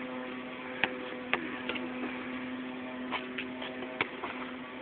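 A basketball bouncing on an outdoor court, five or six separate bounces at an uneven pace, over a steady motor hum.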